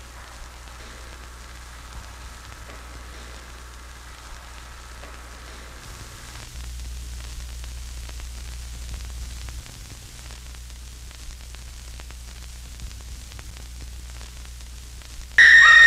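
Steady static hiss with a low hum underneath. Near the end, a loud shrill burst about a second long cuts in.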